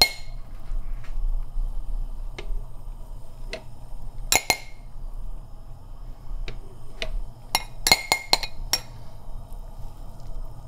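Wire-mesh skimmer clinking against a ceramic bowl and a steel stockpot as foam is skimmed off boiling lamb. There are scattered ringing clinks: a loud pair near the middle and a quick run of about five about three-quarters through, over a steady low hum.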